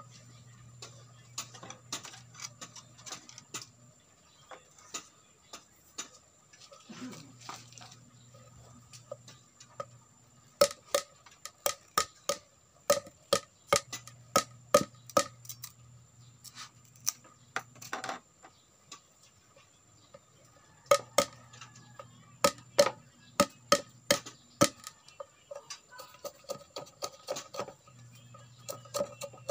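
Bolo knife blade whittling a thin green bamboo stick on a wooden stool: sharp clicks and taps in quick runs, with short pauses between runs.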